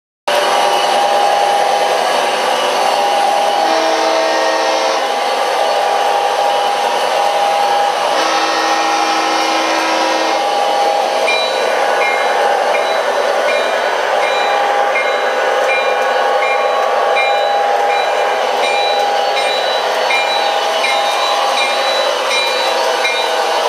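MTH O gauge model diesel locomotives running on three-rail track, with a steady whirring hum from the motors and wheels. The onboard sound system sounds two horn blasts, about four and eight seconds in, then rings a repeating bell from about eleven seconds on.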